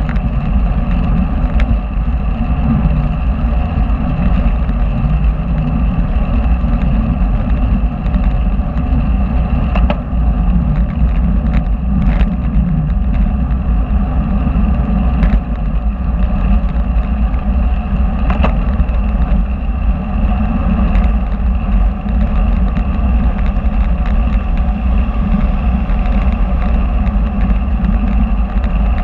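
Steady, loud wind and road rumble picked up by a camera mounted on a moving bicycle, with a few short sharp clicks scattered through it.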